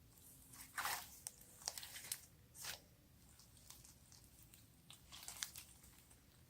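Slime being squeezed and stretched by hand, giving faint crackling pops and crunchy clicks in short clusters.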